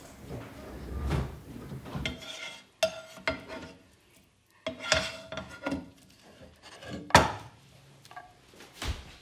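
A spatula clinking and scraping against a frying pan: several sharp clinks with a brief metallic ring, the loudest near the end, after some soft low thuds at first.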